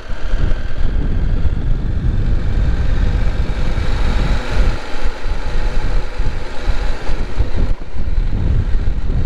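Motorcycle engine running while riding, with heavy wind rumble buffeting the microphone.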